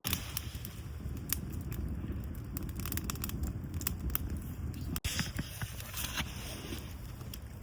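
Wood campfire crackling, with many sharp pops and snaps over a low steady rumble.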